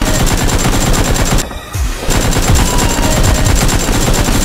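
Rapid automatic gunfire sound effects, many shots a second, with a short break about a second and a half in before the firing resumes.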